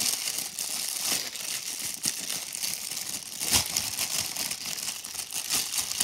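Clear plastic bag crinkling and crackling as hands work it off a small toy, with one louder crackle a little past halfway.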